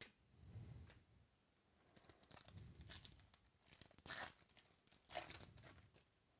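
Foil card-pack wrapper being torn open and crinkled, in several short rustling spells, the loudest about four seconds in.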